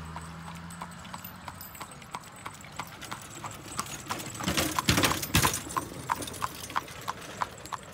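Horse's hooves clip-clopping on an asphalt road as it pulls an open buggy, an even beat of about three hoofbeats a second. A louder rush of noise about a second long comes near the middle.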